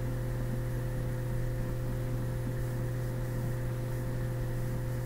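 Steady electrical hum: a low constant tone with fainter higher tones over a background hiss, unchanging throughout.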